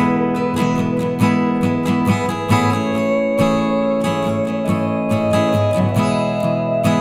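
Background music of strummed acoustic guitar in a steady rhythm.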